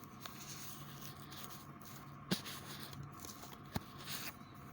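Quiet room tone, a faint steady hum and hiss, with two short clicks, one a little over two seconds in and another near four seconds.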